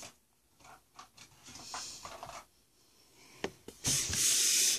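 Trading cards being handled: faint rustling and a click, then a brief, louder scraping rub near the end as cards slide against each other or the surface.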